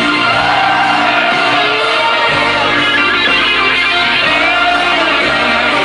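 Live rock band playing a slow ballad, led by an electric guitar holding long notes that bend up and down over the band, loud and dense through the concert sound system.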